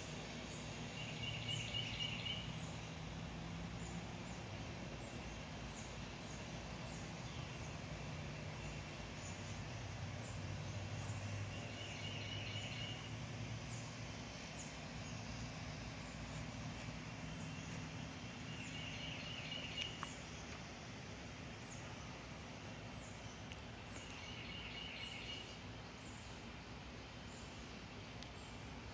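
Outdoor backyard ambience: a small songbird sings a short, rapid trill four times, several seconds apart, over a steady low hum and faint scattered chirps.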